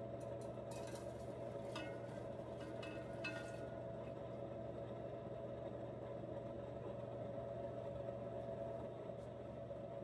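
Silver crystals tipped from a plastic weighing dish into a glass beaker of liquid: a scatter of light clicks and rustles in the first few seconds, then only a steady low hum.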